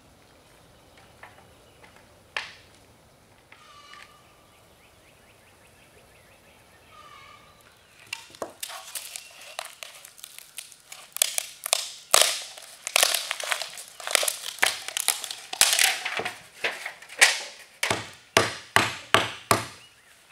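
Mostly quiet at first; then, about eight seconds in, a dense run of crackling and sharp cracks as hardened matsuyani pitch is flexed out of a thin aluminium pie tin and broken up with a hammer, the strikes getting louder and more distinct towards the end.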